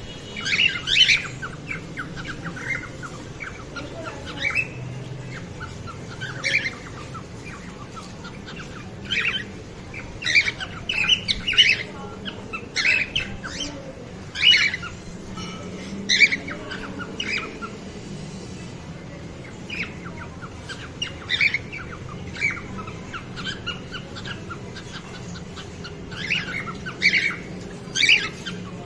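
A colony of cockatiels calling: many short chirps and squawks come in irregular bursts, several birds at once, over a faint steady background hum.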